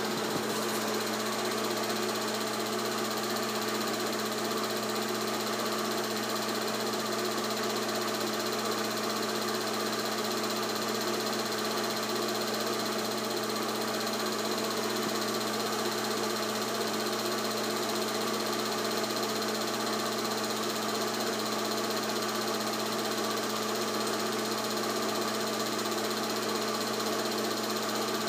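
8mm film projector running steadily: an even mechanical hum with the whirring clatter of its motor, fan and film-advance mechanism.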